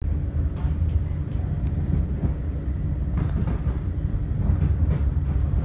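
Passenger train running, heard from on board: a steady low rumble with several sharp clacks from the wheels on the rails.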